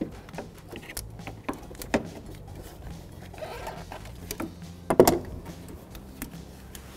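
Scattered light clicks and knocks of a hand tool and plastic parts being worked under a car's hood as the radiator fan shroud and lower radiator hose are freed. There is a brief rustle a little past halfway and a sharper knock about five seconds in.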